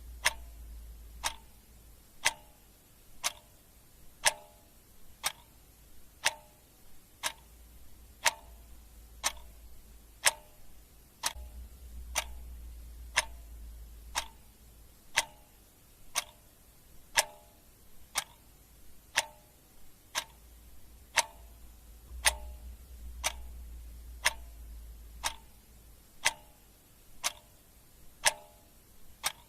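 Clock ticking steadily, about one tick a second. A faint low hum comes and goes underneath.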